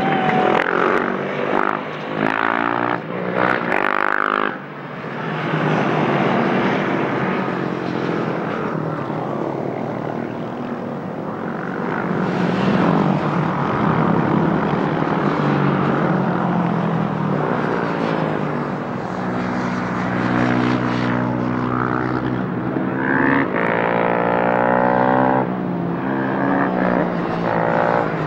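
Several KTM 690 Duke single-cylinder race motorcycles riding past at low speed, their engines overlapping and shifting in pitch. Near the end one engine revs up, rising in pitch.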